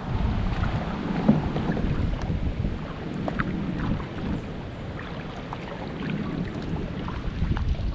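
Water splashing and dripping from a kayak moving along a river under paddle, with wind rumbling on the microphone.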